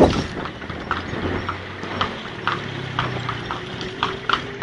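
Hooves of a horse pulling a kalesa clip-clopping on the road at a steady walk, about two sharp clops a second.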